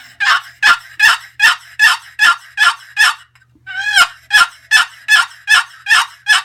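Purple Heart and Cherry wooden turkey box call played as a hen's yelp: two runs of evenly spaced, raspy two-note yelps, about two and a half a second, with a short pause a little past three seconds in.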